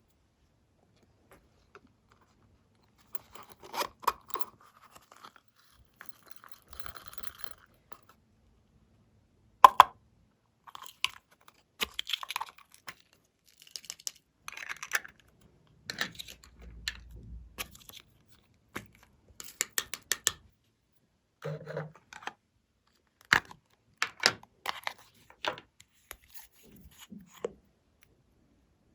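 Glossy slime being worked by hand, giving irregular sticky crackles and clicking pops, starting about three seconds in.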